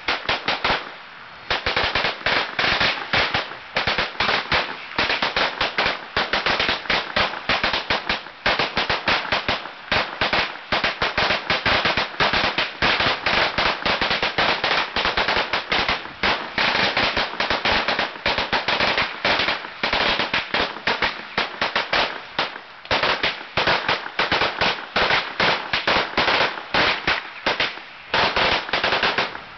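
A long string of firecrackers going off in a rapid, unbroken run of sharp bangs, many per second, with only a brief lull about a second in.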